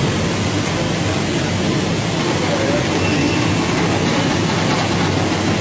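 Potato processing machinery running: mesh-belt conveyor and drive motors carrying peeled potatoes, a steady rumble and clatter with a constant low hum.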